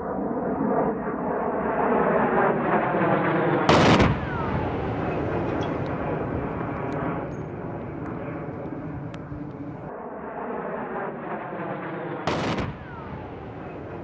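Jet aircraft noise swells, then a sharp, loud explosion blast about four seconds in is followed by a falling whine. The same sequence comes again, with a second blast near the end. The blasts are munitions detonating on target vehicles.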